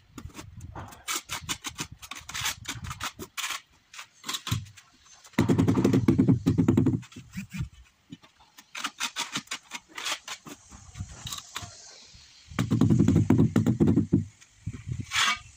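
Trowel scraping and knocking as tile adhesive is scooped from a plastic tub and spread on ceramic tiles: a run of quick clicks and scrapes, with two louder, deeper scraping stretches of about a second and a half each, one near the middle and one near the end.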